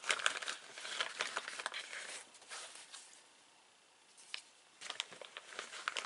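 Paper and plastic packaging crinkling and rustling as it is handled, in two stretches with a quiet lull a little past halfway.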